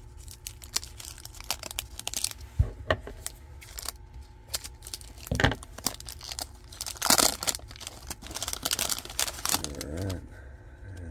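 Clear cellophane wrapper of a 1981 Topps baseball card pack crinkling and tearing as it is peeled off a stack of cards, in irregular crackles with a few louder rips.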